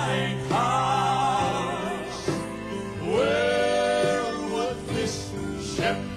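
A southern gospel group singing live: male and female voices in close harmony, holding long notes with vibrato over a band accompaniment.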